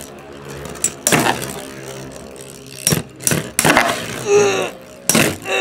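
Two Metal Fight Beyblades with metal wheels spinning in a plastic stadium, clashing with sharp clacks several times, a few clustered around the middle.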